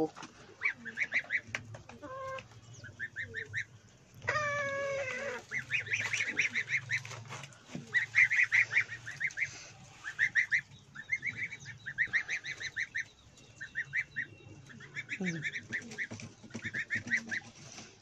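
Poultry calling: bursts of four to six rapid, high chirps that repeat throughout, with one longer honk-like call about four seconds in.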